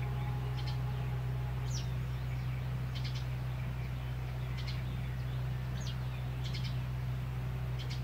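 A steady low hum with faint, brief high bird chirps scattered through it, one every second or so, a couple of them falling in pitch.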